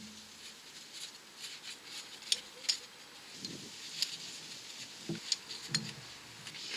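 A few faint, scattered clicks and light taps, about half a dozen over several seconds, from small metal parts and tools being handled at a car's wheel hub.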